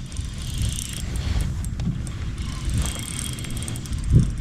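A fishing reel is being cranked as a small spotted bass is reeled in, with faint fast ticking over a steady low rumble. One dull thump comes near the end.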